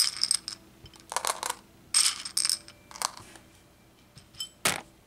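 Small hard pieces clattering and clicking against each other and a surface: short clatters in the first couple of seconds, another just after three seconds and a single sharp click near the end.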